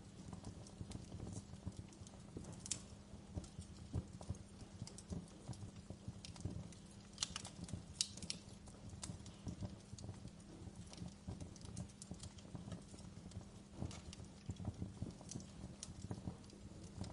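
Wood fire crackling in a fireplace: dense, irregular snaps and ticks over a low, steady rumble, with a few sharper pops about seven and eight seconds in.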